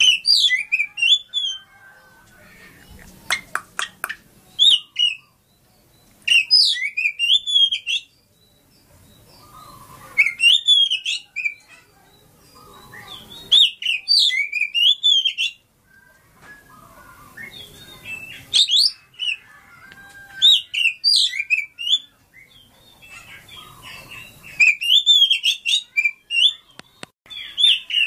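Caged Oriental magpie-robin singing: loud, rapidly gliding whistled phrases of one to two seconds each, repeated every few seconds with short pauses between.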